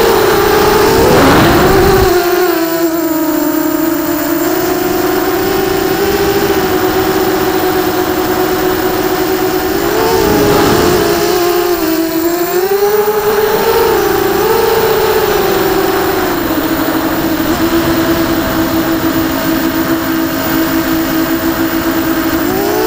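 Brushless motors of a QAV250 racing quadcopter whining steadily in flight. The pitch drops about two seconds in, rises and dips with throttle around the middle, then settles lower. Rushing wind noise comes in at the start and again briefly midway.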